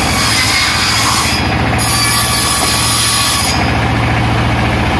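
Sawmill circular saw running with a steady motor hum while a plank of waru (sea hibiscus) wood is fed through the blade; the high hiss of the cut thins out briefly twice.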